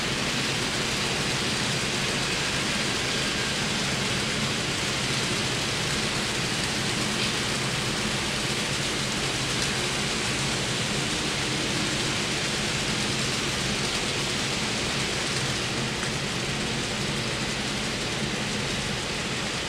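Cars of a model freight train rolling over the layout's track: a steady rushing hiss with a faint low hum, easing slightly near the end as the last cars pass.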